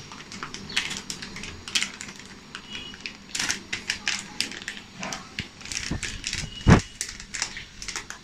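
Metallised anti-static bag crinkling and crackling in irregular bursts as it is handled and opened, with one louder thump about two-thirds of the way through.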